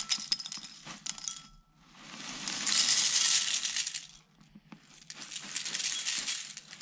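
Dry cornflakes poured from a plastic container into a ceramic bowl, a crisp rattling patter in three pours, the middle one the loudest.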